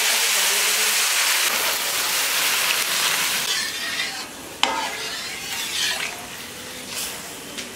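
Water just added to hot oil and fried mung dal in a pot sizzles with a loud hiss that dies away after about three and a half seconds. A spoon then stirs and clinks against the pot a few times over the quieter sizzle.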